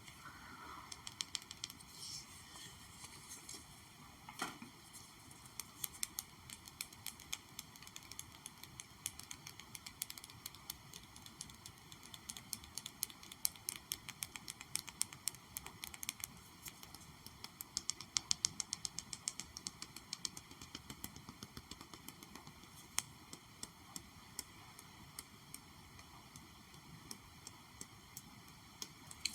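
Light, rapid ASMR tapping: many small sharp taps in quick runs, some dense and fast, with short pauses between, over a faint steady hiss.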